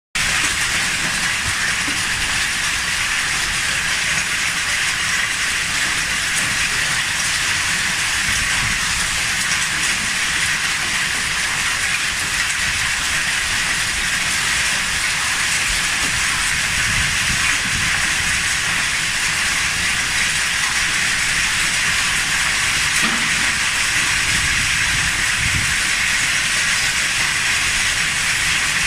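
Hailstorm: hailstones and rain pelting down in a dense, steady hiss that holds without a break.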